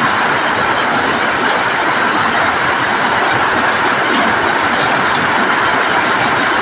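Heavy rain falling steadily on sheet-metal roofs, a loud, even, unbroken wash of sound with no change in strength.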